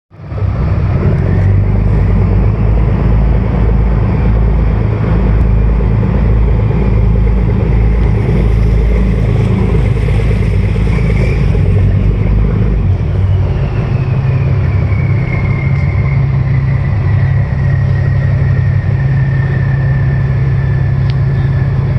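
Charter fishing boat's engine running steadily, heavy at the low end. Its low note shifts about halfway through, and a faint high whine slowly falls in pitch in the second half.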